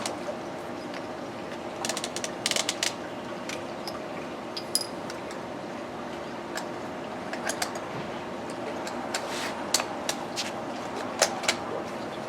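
Small plastic clicks and rattles from a children's toy drill being handled and its parts worked, in scattered bursts, over a steady background hum.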